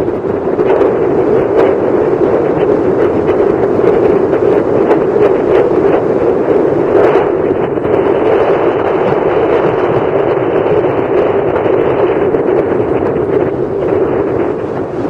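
Strong wind blowing across the microphone: a loud, steady rush with no other sound standing out.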